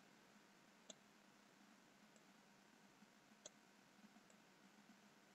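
Near silence with faint computer mouse clicks: two sharp ones, about a second in and again at about three and a half seconds, and a few fainter ticks.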